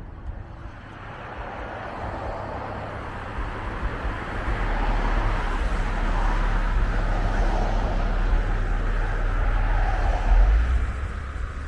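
Cars passing close by in cross traffic, their tyre and engine noise swelling a few seconds in and easing off near the end, over a low rumble.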